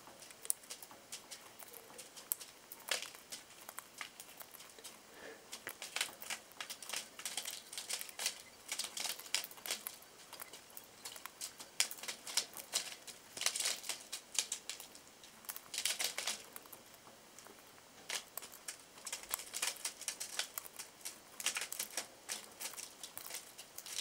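Budgerigar cracking and hulling seed in its beak: rapid, irregular crackling clicks that come in bursts with short pauses between.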